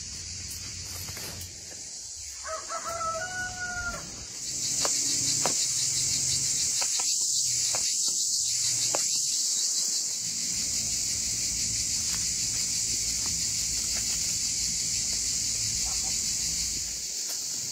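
A rooster crows once, about two seconds in. At about four and a half seconds a loud, steady, high insect shrill with a fast fine pulse sets in and carries on, louder than the crow.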